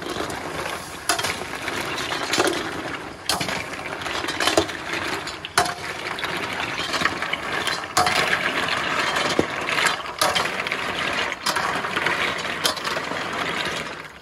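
Loud, steady sizzling hiss as water poured into a hot wok of snails boils up into steam, with sharp clinks scattered throughout as a slotted metal ladle stirs the snail shells against the wok.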